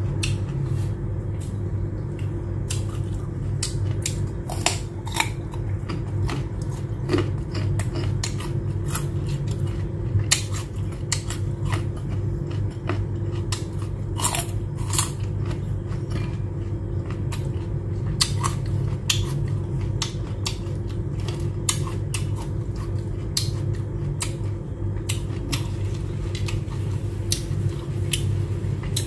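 Raw carrot stick bitten and chewed close to the microphone, with many crisp, sharp crunches, over a steady low hum. Near the end, fried shrimp tempura is chewed.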